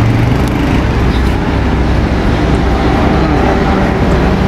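Steady low rumble of motor traffic and engine hum, unchanging throughout.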